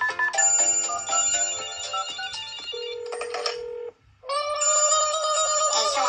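Smartphone alarm tones: a melody of electronic notes, then a steady low tone. The sound breaks off briefly about four seconds in, and a long held electronic tone follows.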